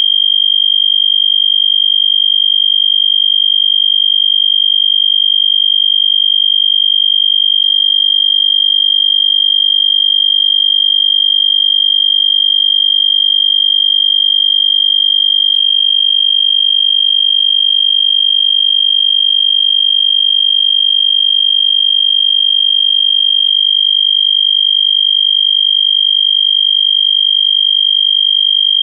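EST Genesis fire alarm horn strobe sounding one unbroken, high-pitched steady tone with no pauses: a jumper has been cut to set it to continuous instead of its usual code-3 temporal pattern.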